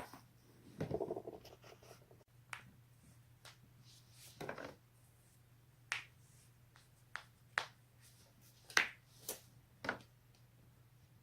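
A person's joints cracking: a series of sharp pops, about ten in all, with a quick rattle of small cracks about a second in and another near the middle, then single pops every second or so, the loudest about three-quarters of the way through.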